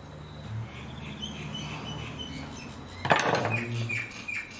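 Small birds chirping on and off, and about three seconds in a single sharp knock, the loudest sound, as the mower's height-adjustment bar and its parts are handled.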